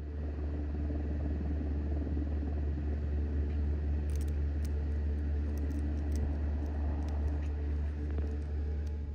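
Steady low rumble under a faint hiss, with scattered faint high clicks from about four seconds in.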